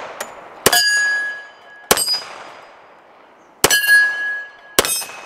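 Four .45 ACP pistol shots from a Remington R1 Limited double-stack 1911, with steel targets ringing on hits. A clear ringing tone lasts about a second after the first and third shots.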